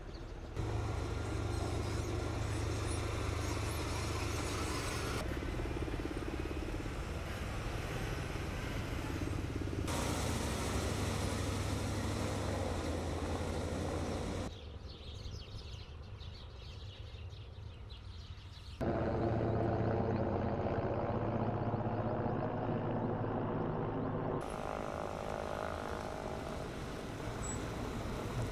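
Engines of heavy armoured military vehicles running as a convoy drives past, a steady low engine hum with road noise. The sound changes abruptly several times, with a quieter stretch for about four seconds around the middle.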